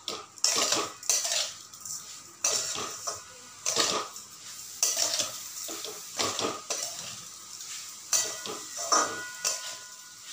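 Metal spatula scraping and knocking against a heavy-bottomed metal kadhai as grated coconut and sugar are stirred and dry-roasted, in irregular strokes about one to two a second.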